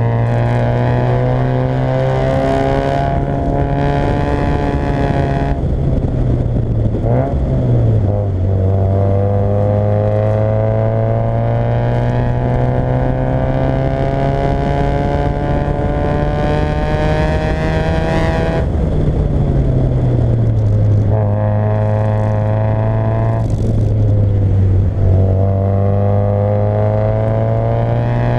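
Fiat Coupé 1.8 16v four-cylinder engine pulling hard, its note climbing steadily through long stretches of acceleration. The note drops sharply several times at gear changes or lifts, including once after a long pull of about ten seconds.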